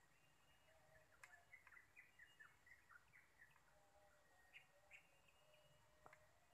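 Faint birdsong: a run of short, quick downward chirps from small birds, with a sharp tick about a second in and another near the end.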